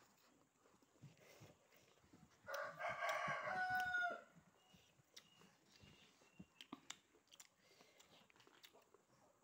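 A rooster crowing once, starting about two and a half seconds in and lasting under two seconds, its call ending in a held note that drops off sharply. Faint scattered clicks of eating by hand come before and after it.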